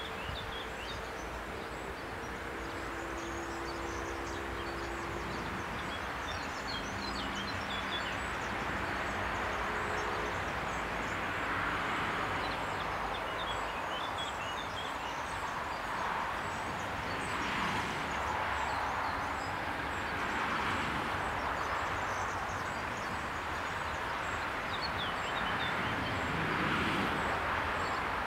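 Outdoor background at a lowered railway crossing: a steady rushing noise that swells and eases several times, with short bird chirps over it. A low, even engine hum sounds for about the first ten seconds.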